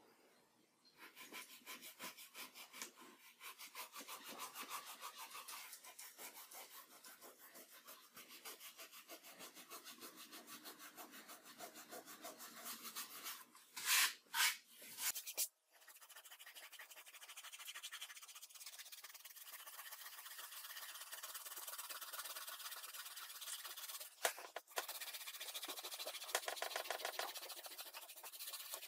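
Dried rubber cement being rubbed off painted paper: quick, steady rubbing strokes, broken about halfway by three loud short bursts.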